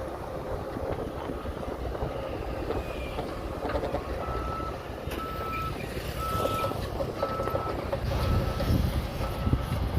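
Bulldozer engine running with a steady low rumble; from about four seconds in, its reversing alarm sounds a series of evenly spaced single-pitch beeps, a little over one a second, and the engine grows louder near the end.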